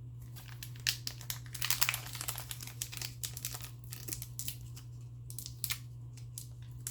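Crinkling of a trading-card pack's foil wrapper as it is handled and opened, in irregular bursts of crackles that are thickest about two seconds in, over a steady low hum.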